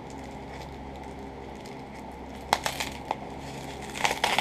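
Thin plastic backing strip being peeled off the self-adhesive strip inside foam pipe insulation, crinkling and crackling: a few sharp crackles about two and a half seconds in and a denser run near the end, over a steady low hum.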